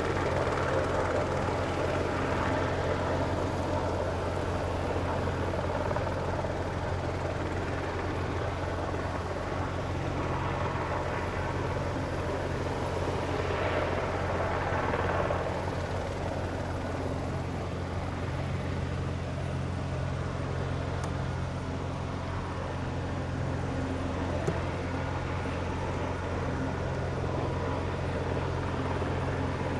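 Aérospatiale AS350B Écureuil helicopter's turbine and three-blade main rotor running steadily as it settles from a low hover onto the ground and keeps turning. The rotor gives a steady low thrum under a thin high turbine whine, which steps down slightly in pitch a little past the middle.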